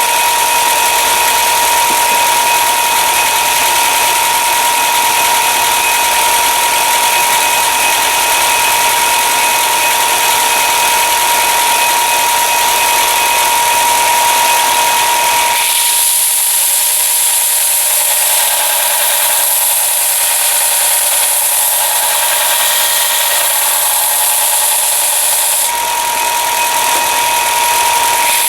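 Belt sander running steadily with a constant whine while a hand-forged steel knife blade is ground on it to rough in a Scandi grind. About halfway through, the sound shifts to a brighter, higher hiss for around ten seconds, then returns to the earlier whine.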